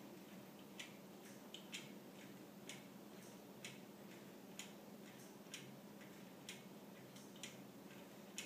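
Wooden escapement of a hand-cut wooden-geared Clayton Boyer Toucan clock ticking faintly and evenly. Louder ticks come about once a second, each with a softer tick about half a second after it.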